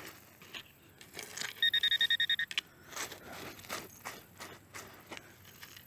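Metal detector beeping rapidly, a quick run of high electronic beeps about a second and a half in, lasting about a second, signalling another metal target in the dig hole. Scattered clicks and scrapes sound around it.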